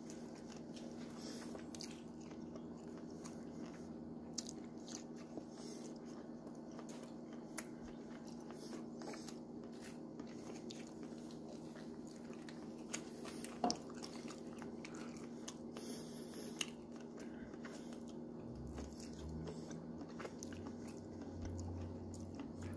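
A person chewing and biting food close to the microphone, with scattered small crunches and clicks over a steady low hum.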